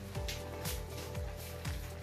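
Background music with a steady beat: held tones over a low drum stroke about twice a second.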